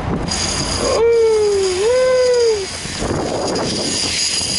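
A person's drawn-out two-part whoop, about a second long and more, sliding down in pitch and then rising and falling again, over the steady low hum of the boat's idling motor.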